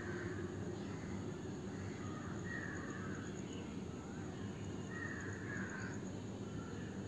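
Crows cawing in the background, a harsh call every second or two, over a low steady hiss.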